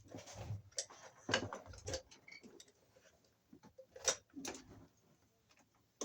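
Irregular clicks, taps and rustles of hands handling wires and tools at an electrical junction box, a few sharper clicks among them.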